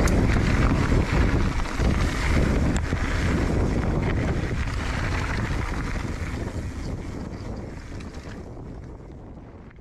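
Wind rushing over an action camera's microphone as a mountain bike rolls down a gravel trail, with the rumble and small knocks of the tyres on the stones. The sound fades out steadily over the last few seconds.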